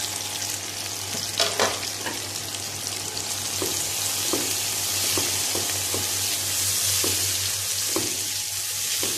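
Onion, tomato and spice masala sizzling in hot ghee in a kadhai, with a spoon scraping and tapping against the pan every second or so as it is stirred.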